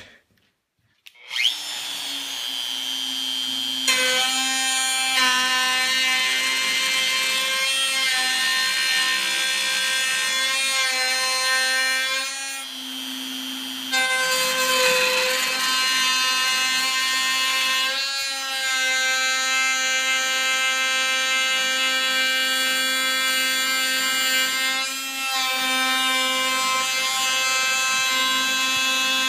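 Handheld wood router starting up about a second in and then running steadily with a high whine. Its bearing-guided flush-trim bit is trimming an oversized plywood layer flush with the glued-up piece, and the whine shifts in tone several times as the bit cuts.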